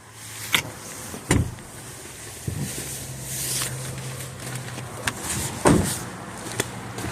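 Seatbelt being pulled out and let go inside a car, with several sharp clunks and knocks and a brief hiss of webbing. A low steady hum runs for a couple of seconds in the middle and starts again near the end.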